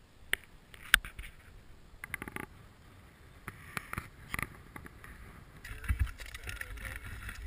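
Nordic skates and ski-pole tips on natural ice: scattered sharp clicks and scrapes of blades and pole tips striking the ice, with a steadier rushing noise setting in near the end.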